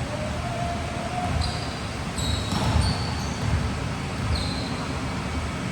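Game sounds on an indoor court: thuds of a ball and feet, with several short, high sneaker squeaks on the floor against a general hall din.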